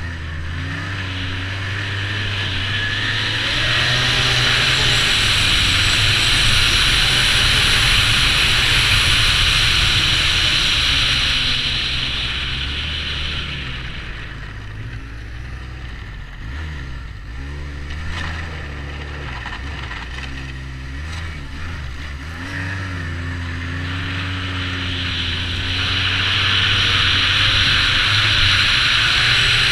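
2009 Arctic Cat Z1 Turbo snowmobile's 1,056 cc turbocharged four-stroke three-cylinder engine running under way, with a loud rushing hiss. It pulls hard for about ten seconds, eases off through the middle, then opens up again near the end.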